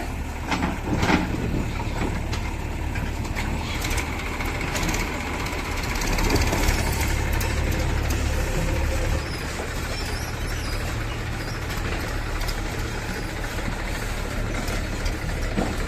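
Heavy diesel machinery engine running steadily, growing louder for a few seconds around the middle, with a few sharp knocks in the first second or so.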